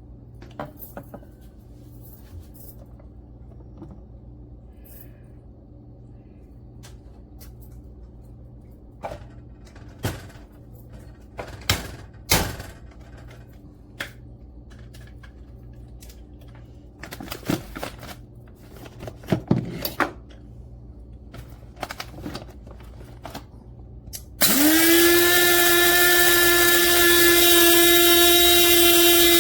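Scattered clicks and knocks of handling. Near the end a small electric motor starts suddenly, rises quickly in pitch and then runs loud and steady.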